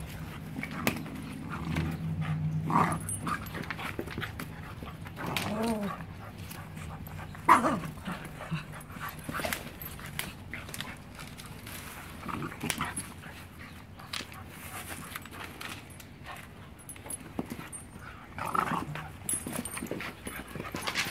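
Pit bull puppies play-wrestling, with scattered short whines and yips. One sharp cry about seven and a half seconds in is the loudest.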